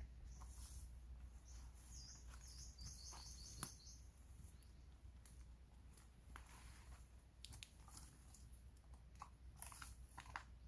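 Faint outdoor quiet with a small bird giving a quick run of short, high chirps about two seconds in, among scattered soft crunches and crackles.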